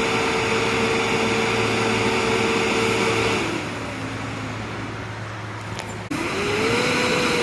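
Tata SE truck, loaded with logs, its engine running under load with a steady whine. A little past three seconds the whine falls in pitch and the sound quietens as the engine eases off. About six seconds in the sound breaks off abruptly, and then the whine climbs again as the engine picks up.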